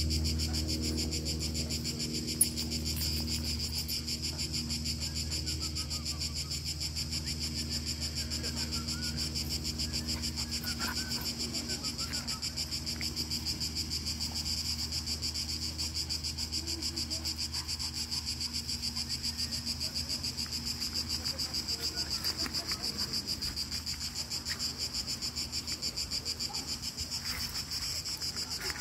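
A steady insect chorus: a dense, shrill, rapidly pulsing buzz that never lets up. A low rumble underneath fades over the first few seconds.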